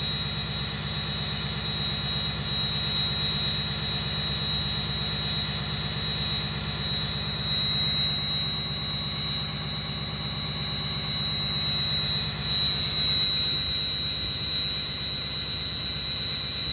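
Ford 6.0 Power Stroke V8 turbo-diesel running at high idle after a cold start. The steady, high whistle of its Stage 1 Garrett Powermax turbocharger sits over the engine noise and grows a little stronger near the end.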